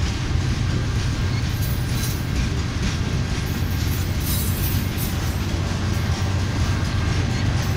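Empty covered hopper cars of a freight train rolling slowly past on the rails: a steady low rumble of wheels and trucks, with short rattles and clanks now and then.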